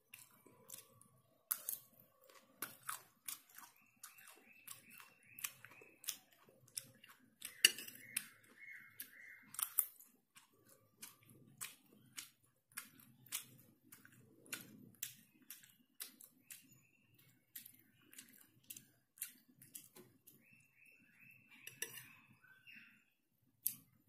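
Close-up eating sounds: a metal spoon clicking and scraping against a ceramic plate, with soft chewing between the clicks.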